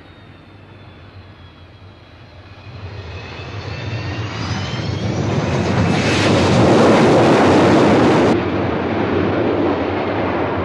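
Spaceship engine sound effect, an aircraft-like engine roar with a faint rising whine. It builds from about two and a half seconds in to its loudest around six to eight seconds. Its hiss then cuts off abruptly, leaving a steady lower roar.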